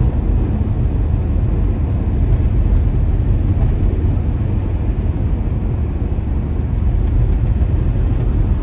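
Steady low rumble of a vehicle driving at highway speed, heard from inside the cabin: engine and road noise.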